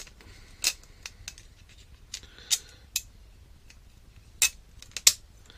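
Sharp, irregular clicks and taps of small screws and a 3D-printed plastic frame side being handled against a carbon-fibre quadcopter frame plate, about five of them louder than the rest.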